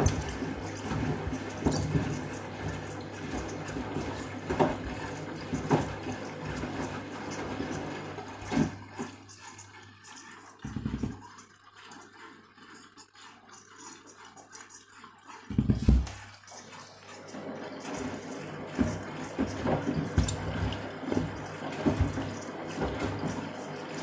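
Candy front-loading washing machine on its final rinse: water running and sloshing in the drum over a steady low motor hum. Midway the sloshing drops away for several seconds, broken by two heavy thuds as the shoes in the drum drop.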